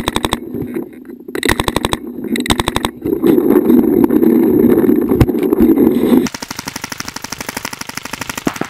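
Paintball marker firing rapid strings of shots, a fast even rattle of pops, heard up close in several bursts. In the middle a loud low rumble covers the fire. For the last couple of seconds the rapid firing goes on fainter and steadier.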